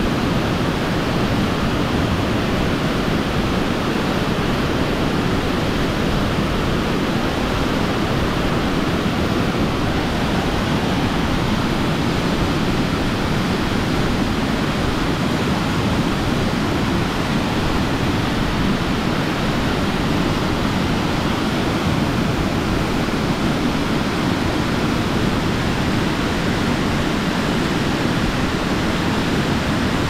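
Waterfall: water rushing down in a loud, steady, unbroken wash of noise.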